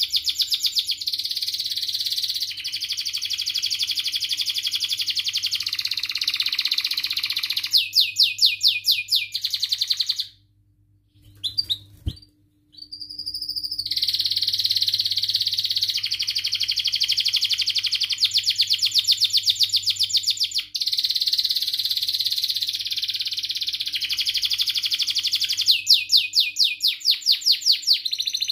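Domestic canary singing a long, continuous song of rolling warbles and chirps, twice breaking into a louder, fast trill of repeated notes. The song stops for about three seconds a little over a third of the way in, then picks up again.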